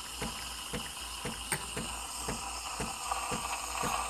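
A spoon stirring melting chocolate in a small stainless steel cup, clicking against the metal about four times a second.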